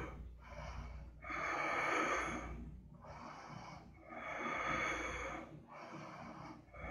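A woman breathing audibly and slowly in and out while holding a yoga twist. There are about three breath cycles, each swell lasting a second or more, stronger and softer strokes alternating.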